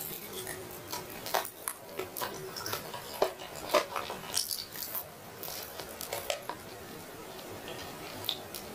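A person eating roast meat: chewing with wet mouth smacks and many irregular small clicks and crackles.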